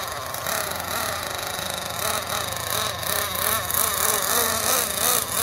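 Team Associated MGT 8.0 nitro RC monster truck's two-stroke glow engine running, its pitch rising and falling as the throttle is worked.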